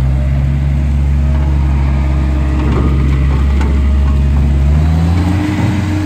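Gehl R150 skid steer loader's diesel engine running as the machine drives and turns, with some rattling and clicking from the machine in the middle. The engine speed rises about five seconds in.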